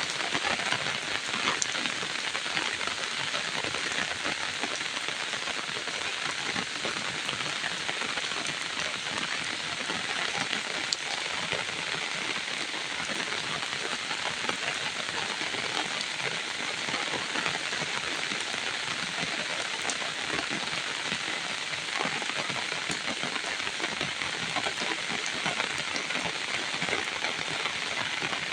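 Steady rain falling, an even hiss of drops with scattered sharper drop ticks.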